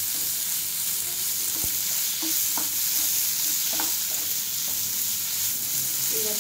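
Masala-coated chicken gizzards sizzling in oil in a non-stick pan as a spatula stirs them. A steady high hiss of frying runs under short scrapes of the spatula against the pan.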